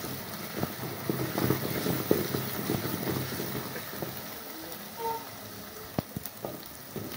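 Chopped onions sizzling in hot oil in an aluminium pot as a wooden spoon stirs them, with a few sharp knocks of the spoon against the pot, the clearest about two seconds in and near the six-second mark.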